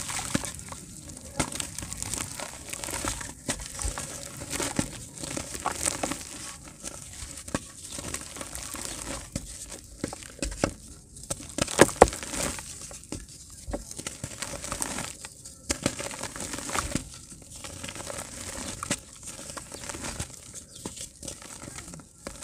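Dry grey dirt crushed and crumbled by hand, a dense, irregular gritty crackling as chunks break apart and crumbs fall into a plastic tub. One sharper crack stands out about halfway through.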